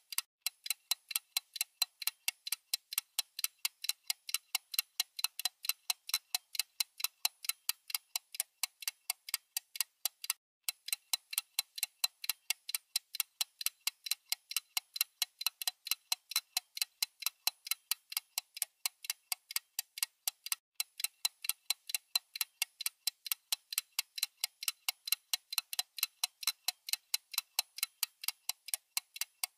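Clock-ticking sound effect used as a quiz countdown timer: a fast, even ticking that breaks off briefly about ten and twenty seconds in, as the timer restarts for each new question.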